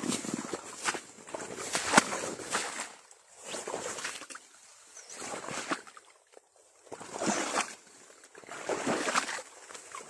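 Water sloshing and splashing in repeated bursts as an eel trap is hauled and shaken in shallow water, with a sharp knock about two seconds in.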